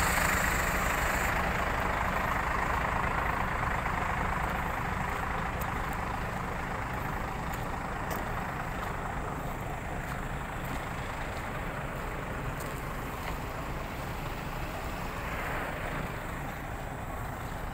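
Heavy truck's diesel engine running, a steady rumble that gradually fades.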